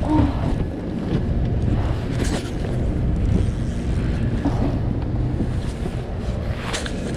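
Wind buffeting the microphone in a steady low rumble over open water lapping against a small boat's hull, with a few brief slaps of water about every two seconds.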